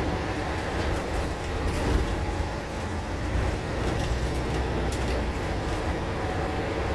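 MAN ND323F double-decker bus under way: a steady low drone of engine and road, with scattered light clicks and rattles.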